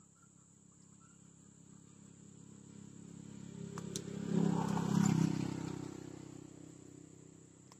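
A motor vehicle passing by: its engine hum builds up, is loudest about five seconds in, then fades away. A couple of sharp clicks come just before the peak.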